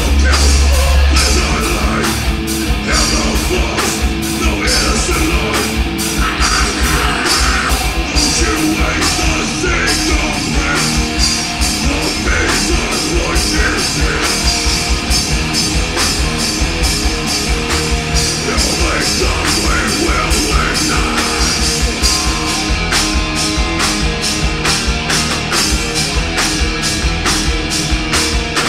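Heavy metal band playing live: distorted electric guitars over a drum kit, with rapid kick-drum strokes that come thicker near the end.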